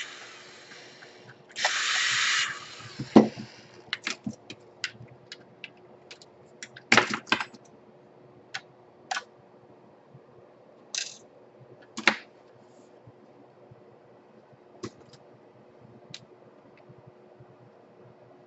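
Scattered sharp clicks and taps of a screwdriver, small screws and plastic laptop parts being handled during disassembly, with a short hiss about two seconds in.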